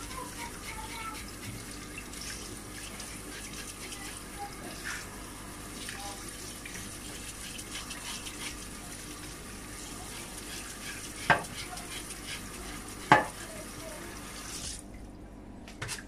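Tap water running steadily into a stainless-steel sink over fish being cleaned with a knife. Two sharp knocks come near the end, about two seconds apart. The water sound cuts off about a second before the end.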